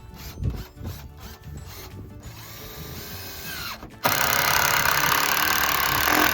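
Power drill driving a screw into sheet-metal roofing: a loud, harsh grinding that starts abruptly about four seconds in and runs for about two and a half seconds, after a run of clicks and knocks from handling the tool and panel.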